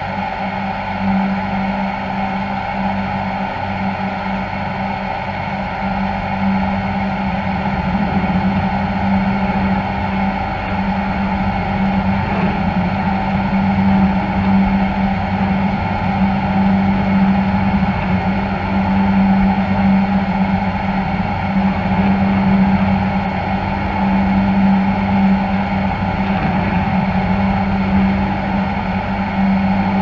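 Steady drone of a ship's engines and machinery heard from the deck: a strong low hum with several higher steady tones, getting slightly louder after about seven seconds.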